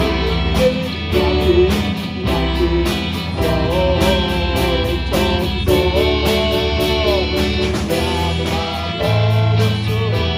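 A live rock band playing an amplified Turkish song: electric guitars, bass and drums, with a lead melody that slides and bends in pitch.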